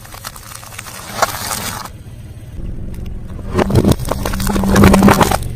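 Close-miked eating sounds: a person biting and chewing crunchy food, crackling softly at first, then a louder run of crunching in the second half.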